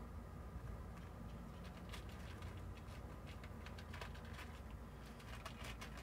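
Cats eating from a shared pan, a scatter of faint, irregular crunching clicks over a low steady rumble.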